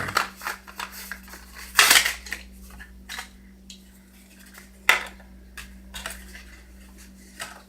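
Plastic and card packaging of a Hot Wheels toy car being handled and opened. It makes sharp crackles and clicks, with the two loudest about two and five seconds in.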